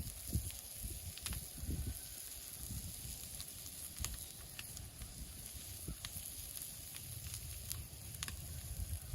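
Butter and brown sugar sizzling in a pan, with scattered small pops and crackles. A few low thumps come in the first two seconds.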